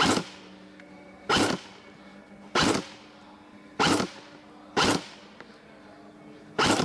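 Airsoft M4 carbine firing single shots: six sharp cracks, each short, spaced about a second apart.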